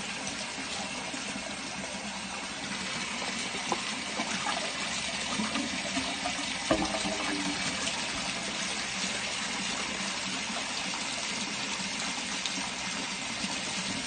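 Waste water gushing steadily through the open channel of a drain inspection chamber. A single sharp knock comes about halfway through.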